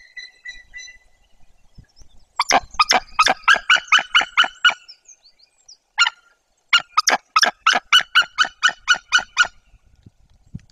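White-tailed eagle giving two loud series of rapid yelping calls, about ten and then about a dozen notes at roughly four a second, with a short break between them. It is calling from the nest in a wing-spread defensive posture, an alarm at an intruding adult eagle.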